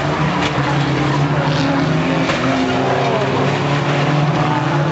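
A pack of old pre-1976 banger racing cars running round the track, their engines droning steadily over one another, with a few short sharp knocks.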